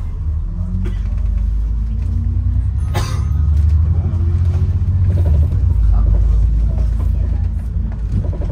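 Heavy low rumble of a bus's engine and tyres heard from inside the moving bus, growing louder through the middle, with a single sharp knock about three seconds in.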